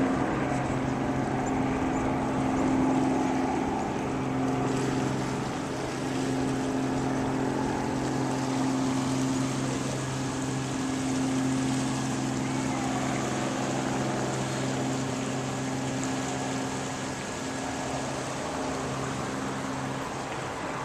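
Engine running at a steady drone, a constant low hum with some rushing noise over it.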